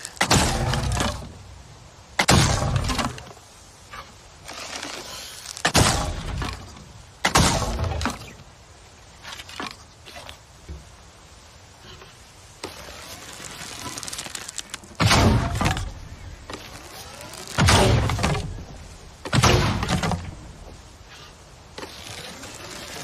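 A longbow being shot over and over: a sharp, sudden thwack each time, about seven loud ones at irregular intervals, with a few fainter knocks between them.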